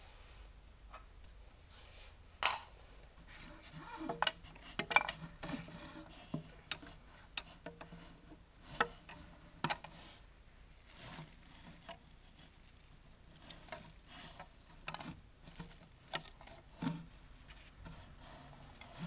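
Thin wooden sticks moved by hand, clicking and knocking against each other and the enclosure with irregular light taps and some rustling; the sharpest knock comes a little over two seconds in.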